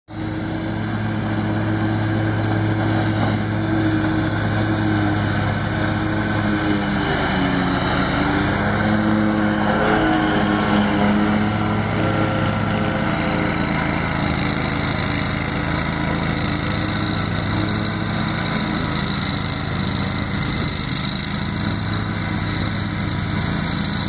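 Husqvarna P-ZT60 zero-turn riding mower running at working speed with its deck cutting grass: a steady engine drone. The pitch wavers briefly about eight seconds in, and the sound is loudest as it passes close, about ten to twelve seconds in.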